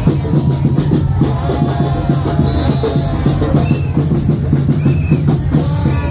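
Loud percussion-driven music: drums and other percussion beating a dense, fast rhythm over a steady low bass.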